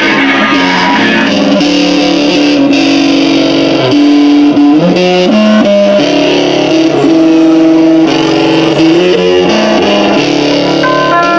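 Distorted electric guitars playing slow, held notes and chords that shift every second or so. Near the end, higher notes start ringing out above them.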